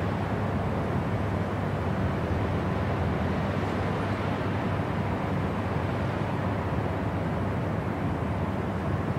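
Steady cabin noise of a jet airliner in cruise: an even, deep rush of airflow and engine noise that does not change.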